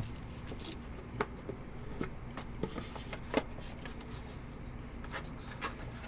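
Trading cards being handled: faint, scattered clicks and rubs as cards slide against one another, over a steady low hum.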